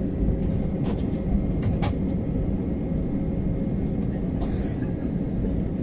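Steady low rumble of an Airbus A320 heard from inside the passenger cabin, its engines running, with a few short clicks about one and two seconds in.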